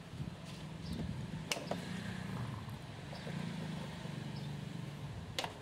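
Plastic tail lamp housing being pulled and worked loose from the car body, with two sharp clicks, one about a second and a half in and one near the end, over a low steady hum.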